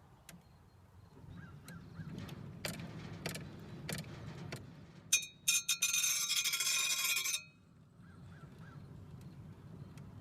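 Steel hoe blade ground lightly against a turning treadle grindstone to take off the burr on its inside face: a low rumble and a few knocks, then about two seconds of loud scraping with ringing metallic tones that stops suddenly.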